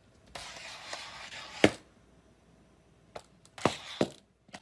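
A handful of sharp clicks and knocks over two short stretches of faint hiss. The loudest click comes about a second and a half in, and there are several more close together near the end.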